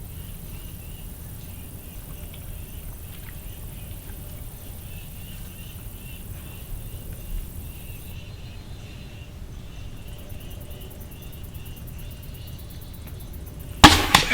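Quiet outdoor background with a low rumble, then a single sharp, very loud gunshot near the end.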